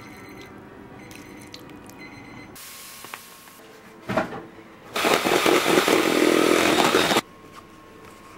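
Eggs being beaten in a stainless steel mixing bowl: a loud, dense rattling of about two seconds that stops abruptly. Before it, a faint trickle of soup being poured over noodles.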